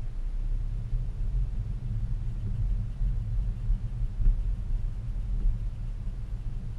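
Ford Focus ST's turbocharged four-cylinder engine running at low revs, heard from inside the cabin as a low, steady rumble.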